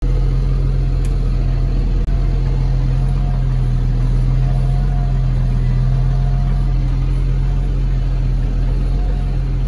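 Tractor engine running at a steady speed, heard from inside the cab as a deep, even drone. The sound cuts out for an instant about two seconds in.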